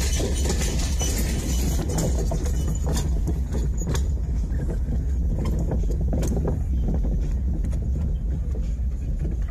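Fiat Seicento rolling slowly over a bridge deck of loose wooden boards, heard from inside the cabin: a steady low engine drone under the clatter of the planks, with several sharp knocks as the tyres hit boards.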